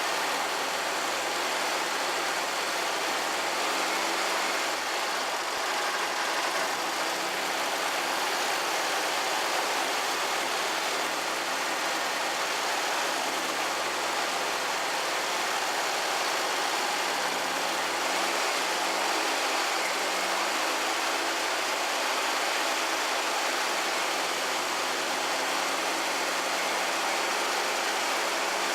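Air-cooled VW flat-four engine of a Karmann Ghia idling, its engine speed wavering a little.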